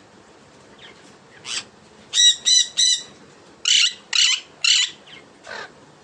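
A bird giving short, harsh, high-pitched calls: one call, then two quick runs of three, then a single falling call.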